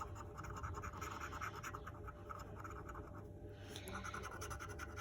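A coin scratching the latex coating off a lottery scratch card in quick, rasping strokes, with a short pause a little after three seconds in.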